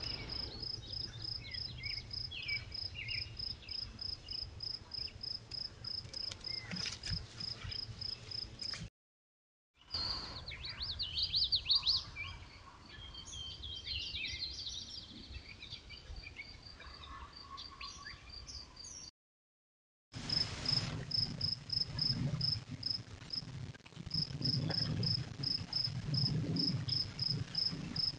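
Woodland ambience from trail camera clips: an insect chirping in a steady train of about three short high pulses a second, with quick bird calls in the middle stretch. The sound cuts off twice between clips.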